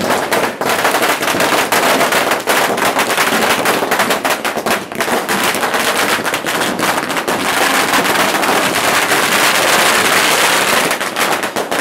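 A string of firecrackers going off in rapid succession, a continuous loud crackle of bangs that thickens toward the end and then thins out.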